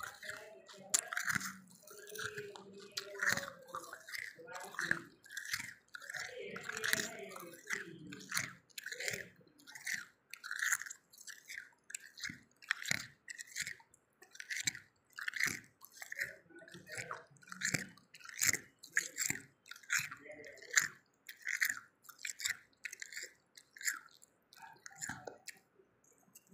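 Freezer frost being chewed: a steady run of crunches, about one or two a second.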